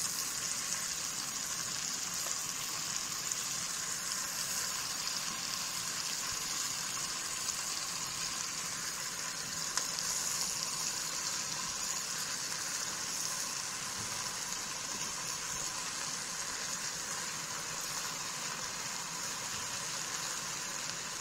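Pot of alugbati (Malabar spinach) cooking in water and sautéed aromatics on a gas stove, giving a steady sizzling, simmering hiss.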